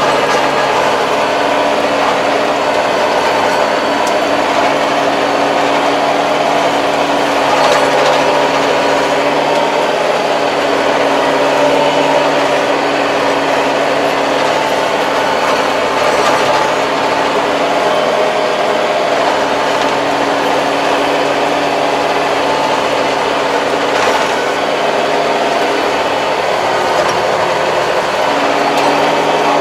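Kubota 75-horsepower tractor's diesel engine running steadily under load, heard from inside the cab, as it pulls a 2.4 m rotary tiller through a field.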